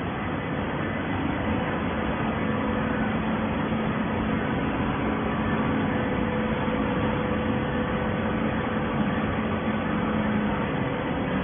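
Plastic-bottle baling machinery running: a steady mechanical noise with a low, even hum.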